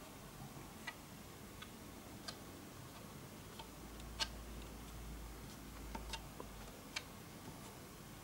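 Quiet room tone with faint, sharp light clicks at uneven intervals, about one a second, and a low hum from about four seconds in until nearly seven seconds.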